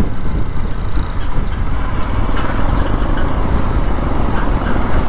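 Road and vehicle noise under a heavy, unsteady low rumble, the pattern of wind buffeting the microphone.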